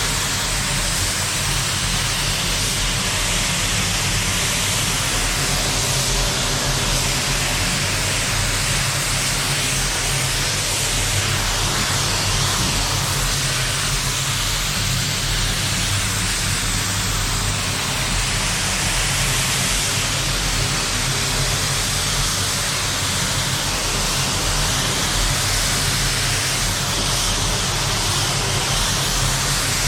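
Steady rushing hiss of a spray booth, with compressed-air spray painting going on, over a low steady motor hum. The hiss swells and eases every few seconds.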